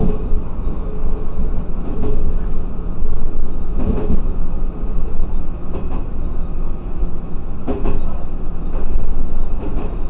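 TH2100-series diesel railcar running along the line, heard from inside the cab: a steady engine and wheel rumble with a sharp knock about every two seconds.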